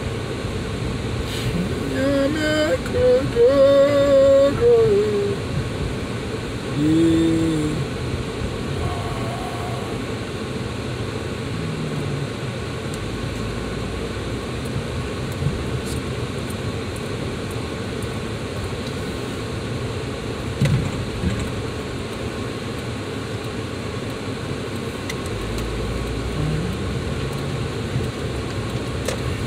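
Steady road and engine noise inside a moving car's cabin. A person hums briefly about two seconds in and again around seven seconds.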